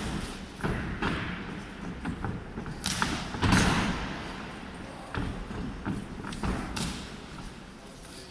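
Irregular thuds and slaps from a boxing bout: gloved punches and boxers' feet striking the ring canvas, about eight impacts with the loudest about three and a half seconds in, echoing in a large hall.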